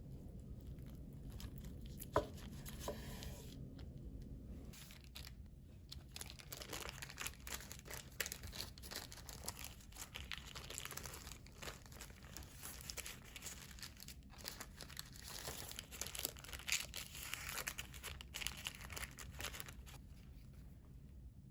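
Crinkly wrapping being handled, with dense crackling and rustling through most of the stretch. A single sharp clink with a short ring comes about two seconds in.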